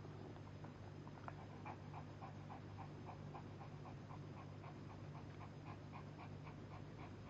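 Shih Tzu mother panting in labour: faint, quick, even breaths, about three or four a second, starting about a second in, over a low steady hum.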